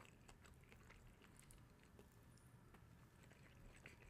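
Near silence, with faint scattered clicks of someone chewing food with their mouth close to the microphone.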